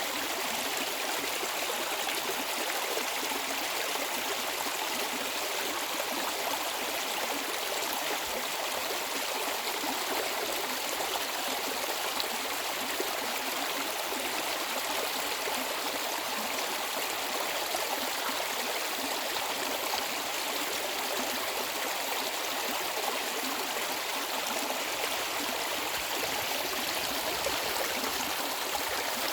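Mountain stream flowing over rocks: a steady, even rush and babble of water.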